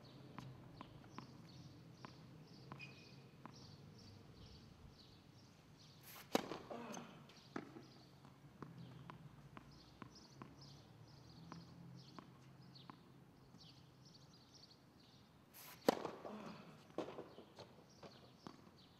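Tennis serves on a hard court: the ball bounced several times as light ticks, then struck hard with a racket, about six seconds in and again near the end. Each serve hit is followed by a few fainter ball impacts.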